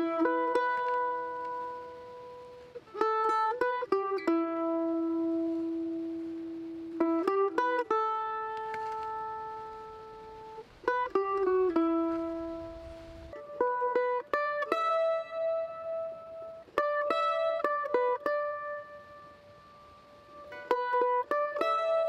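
A-style f-hole mandolin played solo with a pick: short runs of quick notes about every three to four seconds, each ending on a note or two left to ring out.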